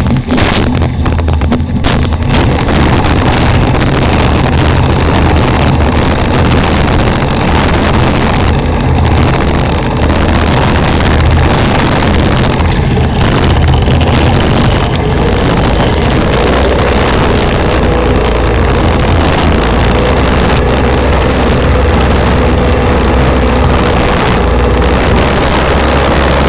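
Polaris Pro 785 personal watercraft's two-stroke engine running steadily at speed across choppy waves, with wind buffeting the microphone.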